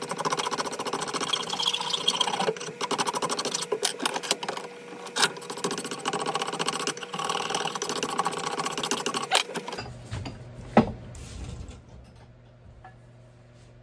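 Rapid, rhythmic abrading of a wooden axe handle's end as it is shaped to fit the axe head's eye; it stops about ten seconds in, followed by a single sharp knock.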